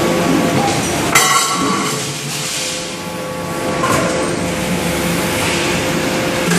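Hydraulic deep-drawing press for aluminium cookware running with a steady hum. A sharp, ringing metal clang comes about a second in, and a lighter metal knock near four seconds.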